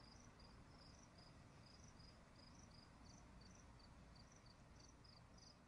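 Near silence, with faint high-pitched insect chirps repeating two or three times a second.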